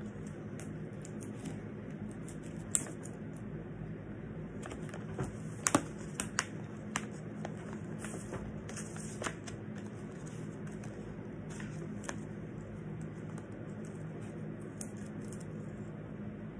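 Scissors snipping and tape being handled: scattered small clicks and crinkles, a cluster of sharper snips a little before the middle, over a steady low hum.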